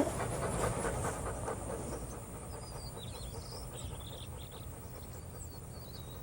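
Dog panting, loudest in the first two seconds and fading, leaving a quiet background with faint, short high chirps.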